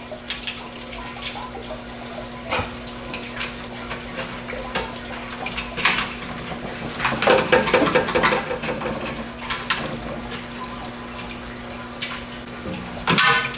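Hands fastening metal bolts, washers and nuts through a plastic tank lid: scattered small clicks and knocks of metal on plastic, with a louder knock near the end, over a steady low hum.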